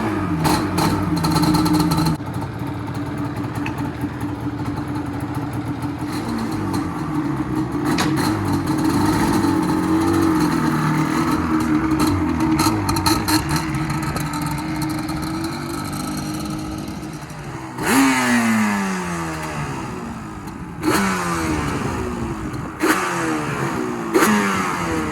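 Yamaha Banshee 350's twin-cylinder two-stroke engine running through its stock exhaust under riding throttle. About two-thirds of the way in it revs sharply four times, its pitch falling away after each rev.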